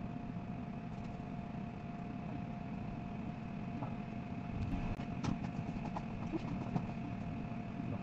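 Steady hum of bench electronics and fans, with two faint constant whine tones. A run of light clicks and taps comes between about four and a half and seven seconds in.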